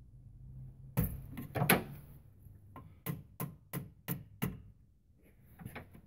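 Hand tools clicking and knocking against the throttle cable's end fitting and linkage: a few irregular knocks about a second in, then five quick, evenly spaced taps, about three a second, and a couple more clicks near the end.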